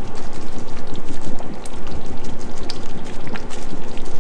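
Thick tomato and ground-meat sauce bubbling in a pot on a gas burner: a dense, steady crackle of small popping bubbles.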